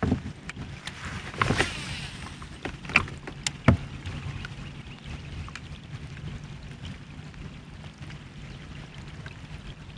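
Scattered sharp clicks and knocks from gear handled aboard a fishing kayak, several in the first few seconds, over a steady low rush of water and wind around the hull.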